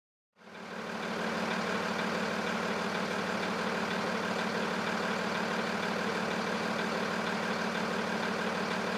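Freightliner M2 box truck's engine idling steadily, fading in about half a second in and fading out at the end.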